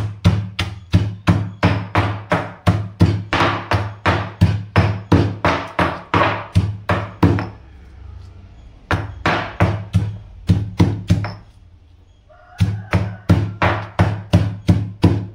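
Pestle pounding crab, garlic and ginger in an ural (mortar), about three heavy thuds a second in three runs with two short breaks.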